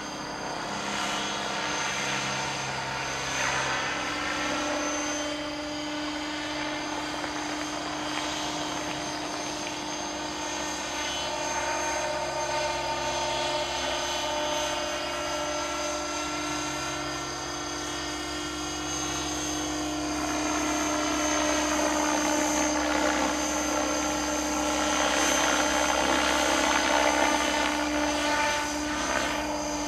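Radio-controlled model helicopter in flight overhead: a steady rotor and drivetrain whine made of several layered tones. The tones sweep up and down in pitch as the model passes and manoeuvres, and it gets louder in the second half.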